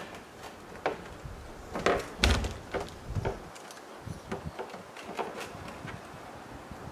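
Hollow knocks and thuds from an empty plastic 55-gallon drum being handled, with a few sharp knocks, the loudest a deep thud about two seconds in, then lighter ticks.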